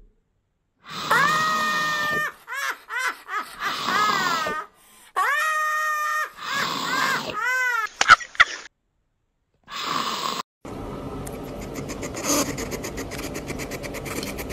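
A high voice making a run of long, drawn-out wailing cries, each held on one pitch and some bending, with short breaks between them. In the last few seconds it gives way to a fainter steady hiss with light ticks.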